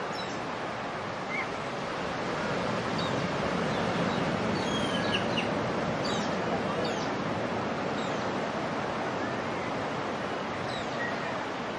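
Beach ambience: a steady wash of surf that swells and eases in the middle, with birds chirping throughout in short, high, falling calls.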